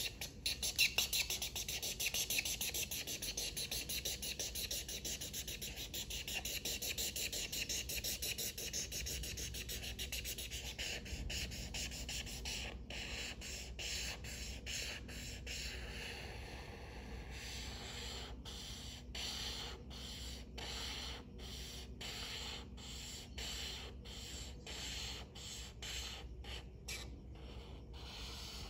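Felt-tip marker scribbling on paper as an area is coloured in: quick back-and-forth strokes at first, then slower separate strokes at about two a second from the middle on.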